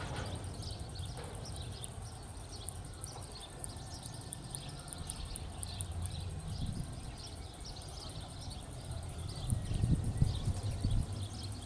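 Outdoor ambience: rapid, repeated high-pitched chirping over a low rumble that swells louder near the end.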